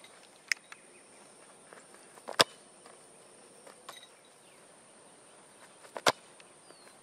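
Soccer ball struck with sharp thuds: a small knock about half a second in, the loudest about two and a half seconds in, and another about six seconds in. A faint steady high insect drone runs underneath.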